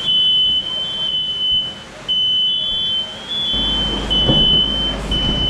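Smoke alarm sounding: a shrill, high steady tone in long pulses with short breaks, set off by smoke from cornbread frying in oil. A low rumble joins about two-thirds of the way through.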